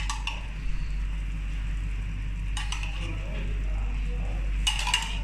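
Light clinks and scrapes of ghee being scooped from a glass jar onto biryani rice in an aluminium pot, in three short clusters: at the start, midway and near the end. A steady low hum runs underneath.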